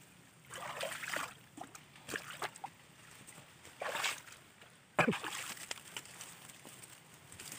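Sloshing and splashing in shallow water or wet mud, in irregular bursts, with one sharp, louder splash about five seconds in.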